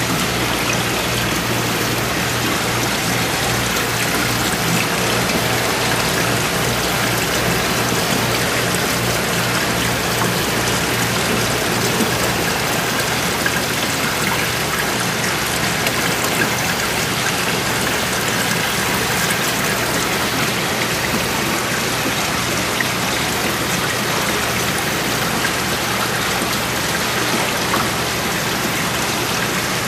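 Steady trickling and splashing of water circulating in an aquarium tank, with a low, steady pump hum underneath.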